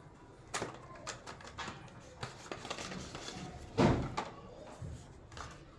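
Handling noise from unboxing a phone: light taps and rustles of the box and packaging, with one louder thump about four seconds in.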